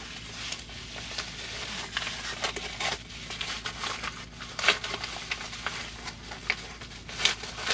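Yellow padded paper mailer being torn open and handled: irregular crinkling, rustling and tearing of the paper.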